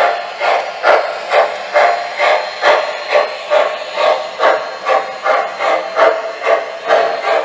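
An MTH Rail King Pennsylvania 2-8-0 model steam locomotive's Proto-Sound 2.0 sound system playing steady steam chuffs, a little over two a second, as the model runs along the track.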